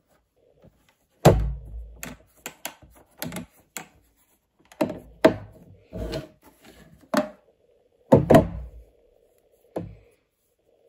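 Irregular knocks and thunks of a hard plastic watch case and a watch being handled and set down on a table, the heaviest about a second in and near the end. A faint steady hum from the recording equipment runs underneath.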